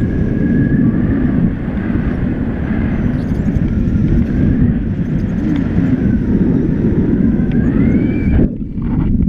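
Airflow buffeting the action camera's microphone in paraglider flight: a loud, dense rumble that drops away for a moment near the end, then returns.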